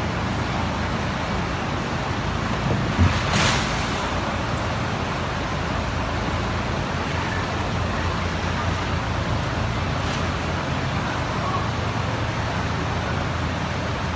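Steady motor vehicle or road traffic noise, a low rumble, with a short knock about three seconds in.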